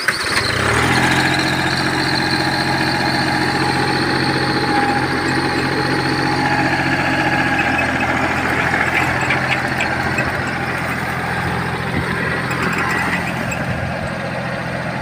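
A Farmtrac compact 4x4 tractor engine runs steadily under load, driving a Maschio rotavator (rotary tiller) through the soil. The sound starts abruptly, the engine note rises over the first second, and then it holds an even pitch.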